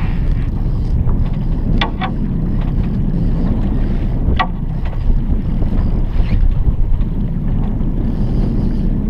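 Outboard motor running steadily at trolling speed: a low rumble mixed with wind on the microphone, with a few short sharp ticks about two and about four and a half seconds in.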